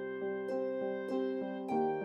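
Soft, gentle background music of plucked, harp-like notes, a new note sounding about every half second over held tones.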